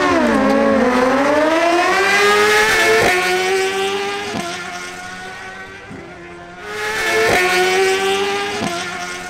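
Suzuki GSX-R1000 inline-four sportbike engines at full throttle on a drag-strip run. The pitch climbs and drops sharply at each upshift, with about six shifts about a second and a half apart. The sound fades as the bikes pull away, then comes back louder about two-thirds of the way through.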